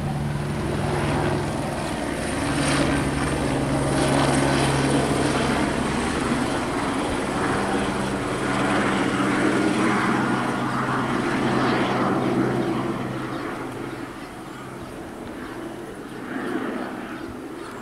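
Eurocopter AS350 B2 Astar helicopter flying overhead, its rotors and single turboshaft engine running steadily; loud for the first dozen seconds, then fading as it moves away.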